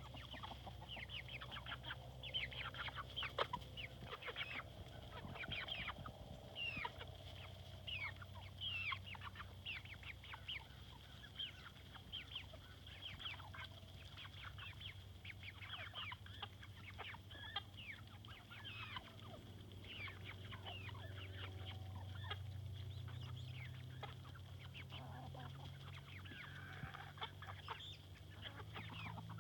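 A flock of chickens clucking and calling, with many short calls overlapping throughout, over a steady low hum.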